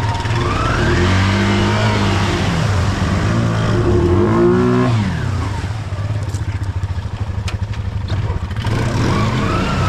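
Snorkelled ATV engine revving as the quad plows through deep pond water, the revs climbing, easing off around the middle and picking up again near the end, with water churning around the machine.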